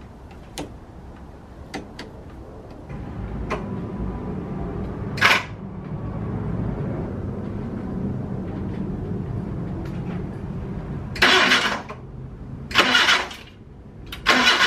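Datsun 210's four-cylinder engine cranking over on the starter for about eight seconds without catching, after a few light clicks. It is not firing up for lack of fuel. Near the end come three short, loud hissing bursts.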